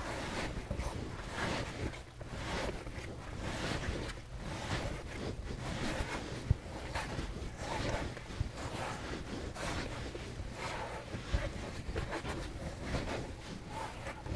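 Bread dough being kneaded by hand on a floured silicone pastry mat: soft, rhythmic pushing and rubbing, about one stroke a second.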